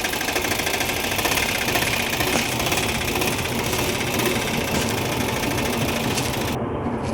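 Piaggio Ape auto-rickshaw engine running steadily at idle, just started after an oil change.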